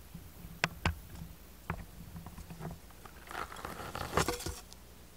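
A few sharp clicks, then a stretch of rustling and crackling about three and a half seconds in: tall dry grass brushing against the phone and underfoot while walking.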